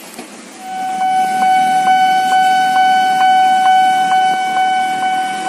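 A KTM diesel locomotive's horn sounding one long, steady blast on a single note as the passenger train passes. Faint regular clicks, a little over two a second, run under it.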